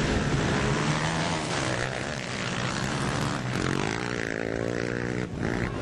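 Racing ATV engines running hard, with the pitch climbing about three and a half seconds in as one revs up.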